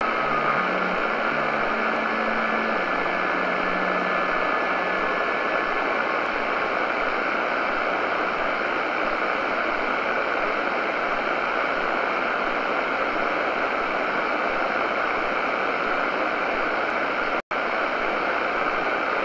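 Steady shortwave static hiss from a Tecsun PL-600 receiver in SSB mode on 7077 kHz, the quiet gap between JT65 digital-mode transmissions. Faint stepping tones from the last JT65 signal die away in the first few seconds, and the hiss cuts out for an instant near the end.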